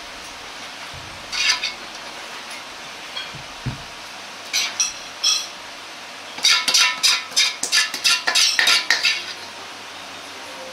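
Metal ladle clinking and scraping against a wok and plate as sauced fried chicken is scooped out: a few single clinks, then a quick run of about a dozen clinks and scrapes over two to three seconds near the end.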